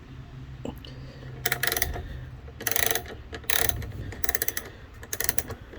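Socket ratchet clicking in five short bursts of rapid clicks, starting about a second and a half in and coming about once a second, as it is swung back and forth to loosen a bolt on a motorcycle exhaust clamp.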